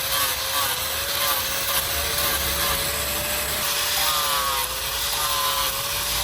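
A power tool running steadily against the work, a rough rubbing noise over a slightly wavering motor tone.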